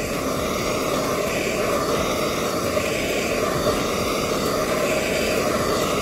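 Hand-held gas torch flame burning steadily with an even rushing sound, preheating the fuel generator of a vintage Coleman pressure stove before lighting.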